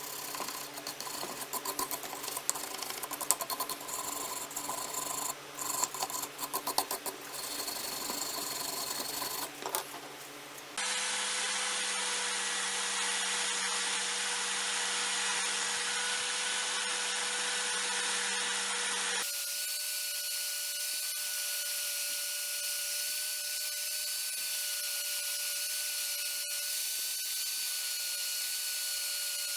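Small electric power tool running steadily. For the first third its hum comes with scraping and clicking of work pressed against it. The hum changes pitch at two abrupt cuts, a third of the way in and again past halfway.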